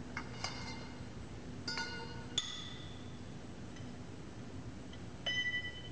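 Steel wrench clinking against the cap screws and steel body of a Cameron BOP ram bonnet as the screws are loosened: several separate ringing metallic clinks, with a short cluster of them near the end.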